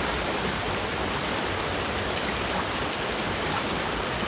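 Fast water of a boulder-strewn stream rushing steadily over and between the rocks.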